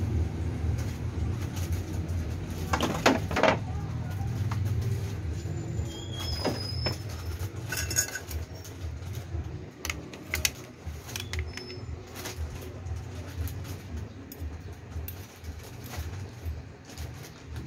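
Background ambience: a steady low hum, with scattered sharp clicks and a few brief high chirps.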